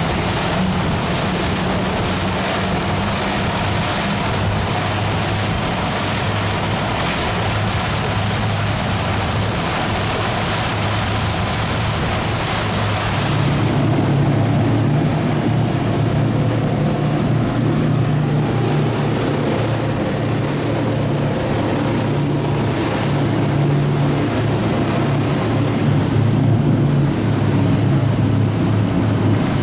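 Motorboat engines running steadily under way, with the rush of water and wind. About halfway through the engine note changes and the high hiss drops away.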